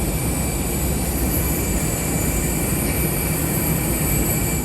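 Steady aircraft noise while deplaning: a low rumble with several high, steady whines, cut off abruptly at the end.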